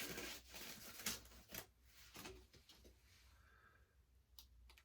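Faint rustles and light taps of wrapped packaging being handled during an unboxing, dying away to near silence about two and a half seconds in.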